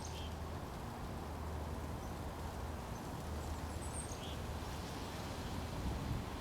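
Outdoor ambience: a steady low rumble of background noise, with a few brief high bird chirps at the start and again about four seconds in.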